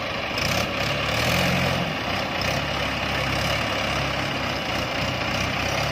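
Diesel engines of two tractors, a Mahindra 575 DI and a Massey Ferguson 7250 DI, running during a recovery from deep mud. The engine note shifts up and down in the first couple of seconds, then runs steadily.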